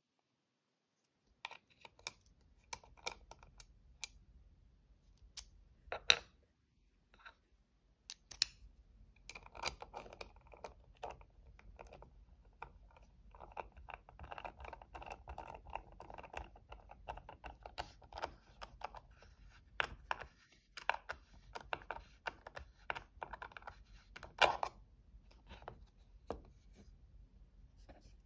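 Scattered small clicks, taps and scraping as a Demko AD20 carbon fiber folding knife is reassembled by hand with a small screwdriver, its metal parts and screws knocking and clicking together. Two sharper clicks stand out, about six seconds in and late on.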